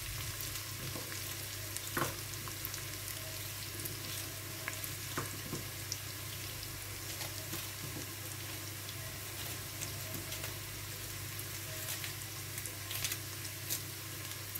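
Sliced onion and chicken sizzling steadily in hot oil in a pot, with a few light clicks.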